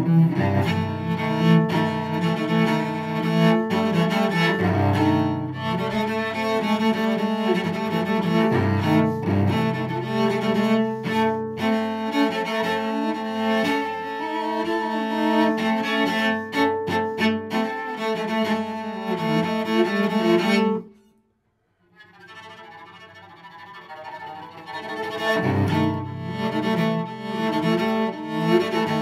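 Solo cello, an 1880 Neuner-Horsteiner, bowed in continuous passages with deep low notes. About twenty seconds in, the playing stops abruptly for a moment of silence, then starts again softly and swells back to full strength.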